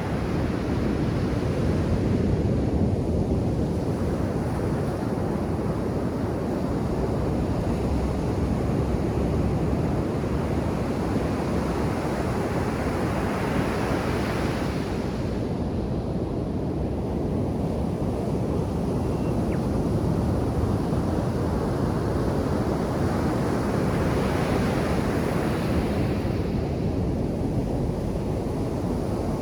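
Ocean surf breaking on a sand beach: a continuous low rumble of waves, with the hiss of a breaking wave swelling and then dropping away about halfway through, and again a few seconds before the end.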